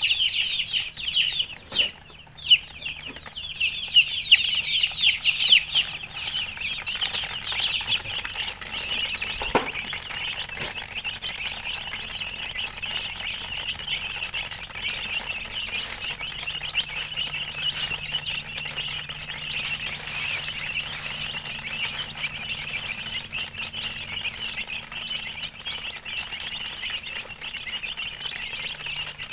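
Many domestic chicken chicks peeping together, a continuous chorus of short high chirps overlapping. It is loudest in the first several seconds, then settles to a steady chorus.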